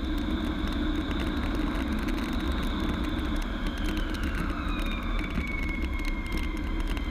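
Twin jet engines of an F-15 Strike Eagle heard from inside the cockpit as it decelerates down the runway with its speed brake raised: a steady low rumble with a high whine. Between about four and six seconds in, the whine falls in pitch as the engines spool down.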